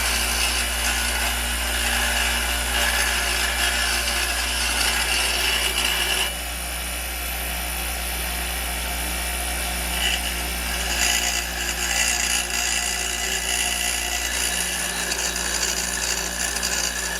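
Electric angle grinder running against metal: a continuous harsh grinding noise over a steady motor hum. The tone of the grind changes about six seconds in.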